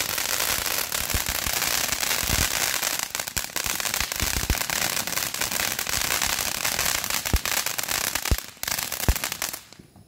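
Highballin ground fountain firework spraying sparks: a loud, steady hiss laced with many sharp crackles and pops, dying away near the end as the fountain burns out.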